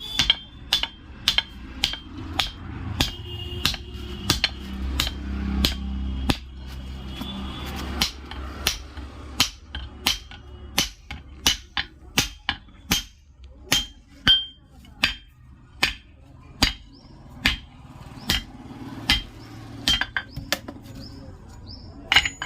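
Blacksmith's hammer striking an axe head on an anvil in a steady rhythm, about one and a half blows a second, each blow ringing. A low hum sits under the blows for the first several seconds.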